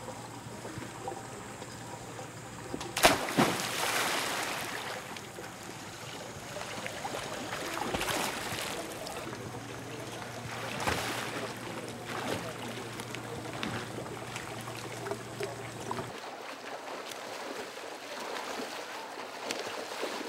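A swimmer goes into a pool with a loud splash about three seconds in, followed by water sloshing and repeated splashes from her strokes and thrashing.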